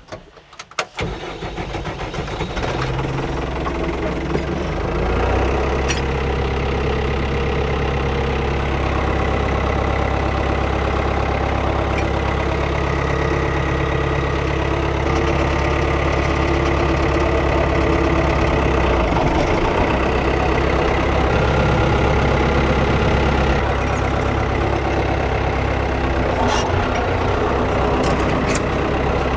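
Old farm tractor's engine starting about a second in, building up over a few seconds, then running steadily.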